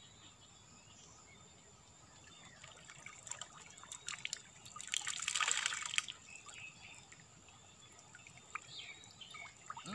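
Water pouring, trickling and dripping off the mesh of a bamboo-pole lift net as it is hauled up out of the river, loudest about five seconds in, then thinning to scattered drips.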